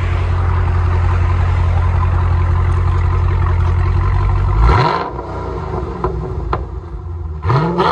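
2019 Dodge Challenger Scat Pack's 6.4-litre HEMI V8 being revved through an exhaust with the mid resonators replaced by Dynomax Race Bullets and the factory rear mufflers kept. It is held at steady raised revs for about four and a half seconds, then blips up sharply and drops back to a quieter, uneven running, with another quick rev near the end.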